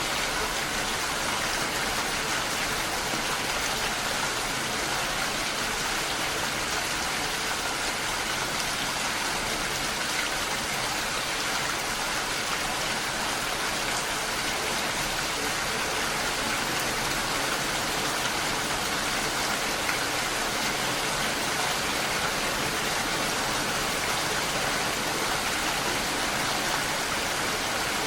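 Steady rainfall, an even hiss of many drops with no single impacts standing out.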